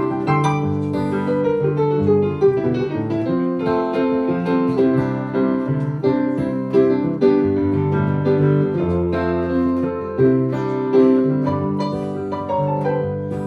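Solo acoustic piano playing an instrumental passage of a ballad: chords and melody notes struck in a flowing rhythm, with no voice.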